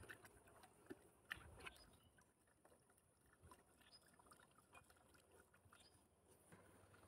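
Near silence: faint water sounds with scattered light clicks, a few slightly louder ones between one and two seconds in.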